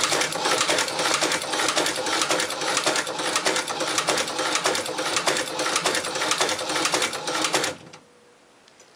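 Hand-cranked Chinese shoe patcher (cobbler's sewing machine) stitching a piece of oil-tanned leather: a rapid, evenly repeating mechanical clatter of needle and walking foot with each turn of the wheel. It stops abruptly near the end.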